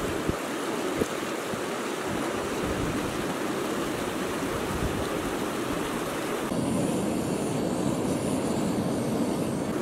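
Mountain stream rushing over rocks, a steady rush of water. About two-thirds of the way in it gives way to a lower, steady roar: a small canister gas stove burning under a titanium pot.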